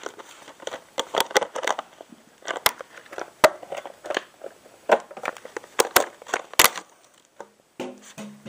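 Plastic water bottle being crushed and crinkled: a run of irregular sharp crackles and snaps.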